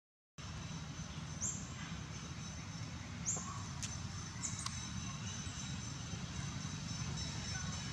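Outdoor ambience: a steady low rumble with thin steady high tones, broken by a few short, high, upward-sweeping chirps, likely birds. It opens with a brief dead-silent dropout.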